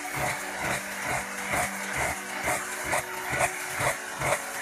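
Electric drill spinning a steel rod in its chuck while a hand-held blade is pressed against the rod and worked back and forth, cutting into the metal. There is a steady motor hum with rhythmic scraping strokes, about two or three a second.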